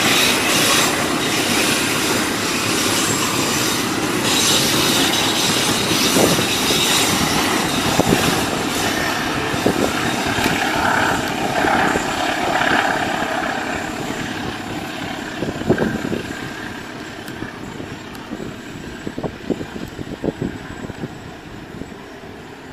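Freight train of fuel tank wagons rolling past on the rails, a steady rumble that fades gradually as it moves away, with a few sharp clicks near the end.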